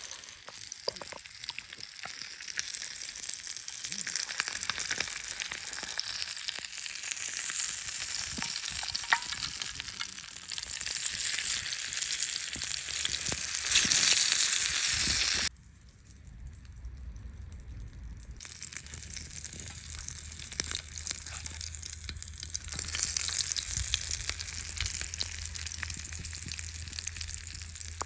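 Rudd frying in oil in a frying pan, a steady crackling sizzle. About halfway through it cuts off abruptly, then returns as a quieter sizzle.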